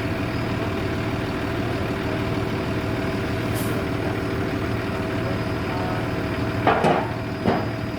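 A vehicle engine idling steadily. A brief hiss comes about three and a half seconds in, and two knocks come close together near the end.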